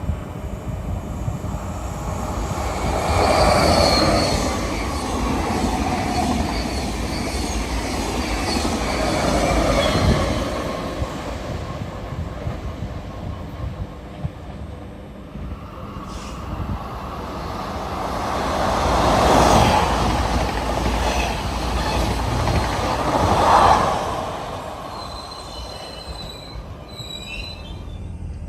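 Electric train running along the rails through a station, its wheel-and-rail noise swelling and fading several times, with thin high squealing tones from the wheels near the start and again near the end.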